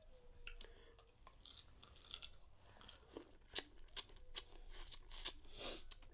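Dungeness crab shells cracking and clicking as legs are pulled apart and picked, with wet chewing and lip smacking. A run of sharp cracks, the loudest about three and a half seconds in.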